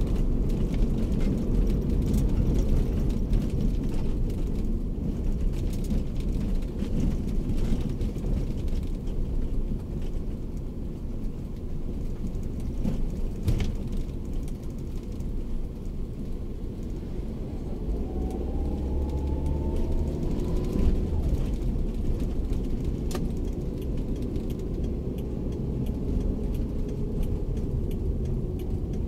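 Daihatsu Terios heard from inside the cabin while driving: a steady low engine and road-noise rumble. Past the middle, the engine note rises for a few seconds as the car speeds up.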